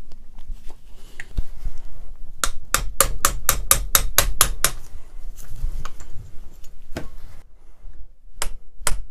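Hand hammer striking a punch to drive the stuck piston and hammer assembly out of a Wacker EHB10/100 demolition hammer's housing: a quick run of about ten sharp blows, then a few single blows near the end.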